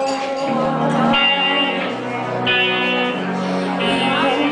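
Guitar-led instrumental intro of a pop ballad, with sustained notes over a slow, steady accompaniment.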